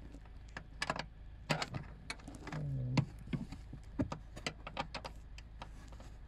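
Irregular clicks and clinks of a spanner and other hand tools on metal as a bolt is worked on, with a short low hum of a voice about halfway through.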